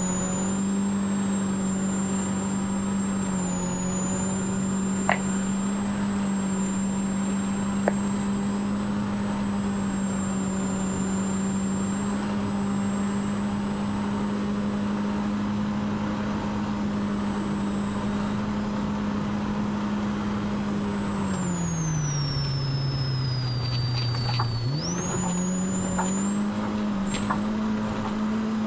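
Polaris RZR Pro R's 2.0-litre four-cylinder engine running at steady high revs as the side-by-side drives fast on a dirt track, with tyre and wind noise underneath. About 21 seconds in the revs fall away for a few seconds, then climb sharply back as it accelerates again. A couple of brief sharp knocks come early on.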